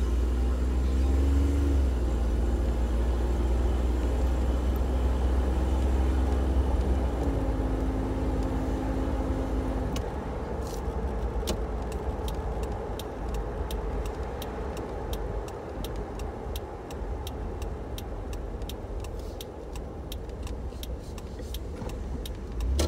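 A 1995 Toyota 4Runner's V6, freshly tuned with new iridium spark plugs, distributor cap, rotor and plug wires, is heard from inside the cabin pulling away. Its pitch climbs and drops back twice in the first seven seconds as it shifts up, then it runs more quietly as the truck eases off. About ten seconds in, a run of sharp ticks begins, roughly two or three a second, and continues to the end.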